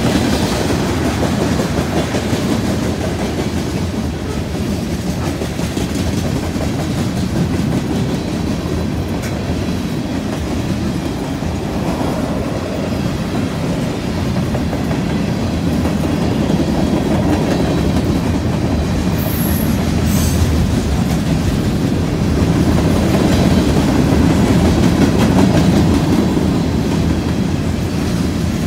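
Freight cars of a CN mixed freight train (tank cars, covered hoppers, coil cars) rolling past on steel wheels. The sound is a steady, continuous rolling noise, a little louder in the last few seconds.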